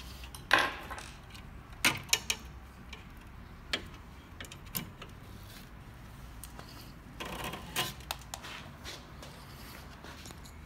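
Scattered small metal clicks, taps and short scrapes as a set screw is loosened and the parts of a Wanhao Duplicator 4 3D printer's extruder bracket are handled, with a longer scraping rub about seven seconds in.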